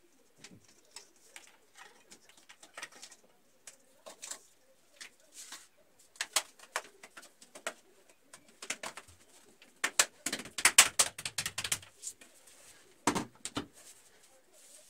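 Hands fitting a white plastic cable run along the wall: a string of plastic clicks, snaps and rattles, densest about ten to twelve seconds in, with a couple of sharper knocks just after.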